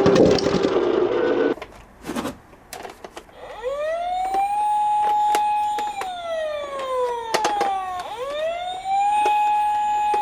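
Toy emergency-vehicle minicar's electronic siren wailing: it starts about three and a half seconds in, rises and holds, slides slowly down, then rises and holds again. A few sharp clicks come before and during it.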